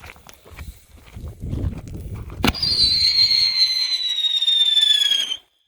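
Retro firework going off: a low rumble, then a sharp pop about two and a half seconds in, followed by a loud whistle that slowly falls in pitch for nearly three seconds and cuts off suddenly. The whistle ends without the bang (report) the firework was supposed to finish with.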